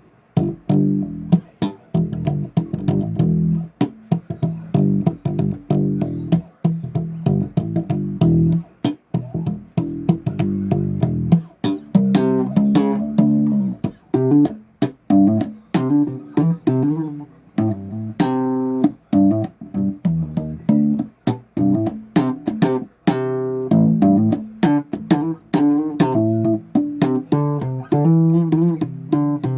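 Bass guitar played solo: a fast, continuous run of plucked notes with sharp attacks. From about twelve seconds in the notes sit higher and ring brighter.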